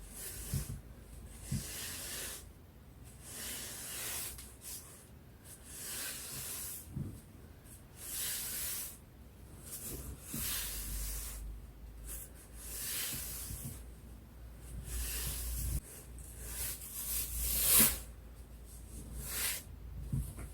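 Broom bristles brushing against a wall in slow, repeated sweeping swishes, about one every one and a half to two seconds.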